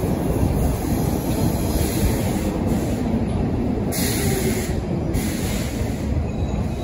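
Stockholm metro train running along the platform: a steady, loud rumble of wheels on rails and running gear.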